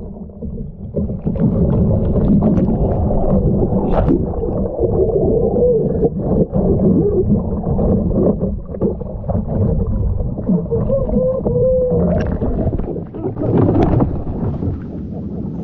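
Muffled underwater sound from a camera on a capsized sea kayak: water churning and bubbling with wavering low gurgles. Near the end the camera breaks back into the air with splashing.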